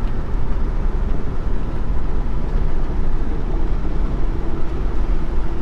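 Holden HK car driving at road speed: a steady rumble of engine, tyres and wind, with a faint steady hum joining about three and a half seconds in.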